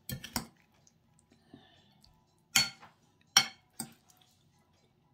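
Metal spoon and fork clinking and scraping against a ceramic plate as a canned-fish salad is tossed: a pair of clinks right at the start, then three more clinks a second or two apart, one with a short scrape.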